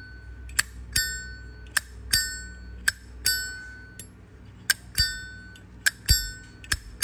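Zippo lighter lid flicked open and snapped shut over and over: about a dozen sharp metallic clicks, many in pairs, each ringing on with a clear bell-like tone, the 'bell tone' collectors listen for.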